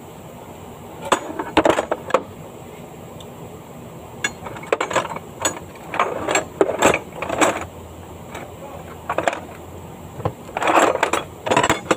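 Metal hand tools clinking and clanking as a wrench is worked on a car's underside, in irregular clusters of sharp clicks with short pauses between.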